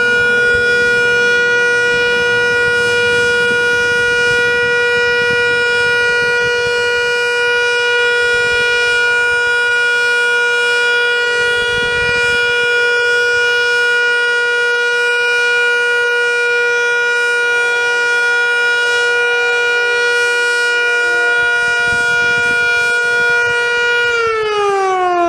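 Federal Signal Model 2 outdoor warning siren sounding its loud, steady alert tone; about 24 seconds in, its pitch starts to fall as the siren winds down at the end of the alert.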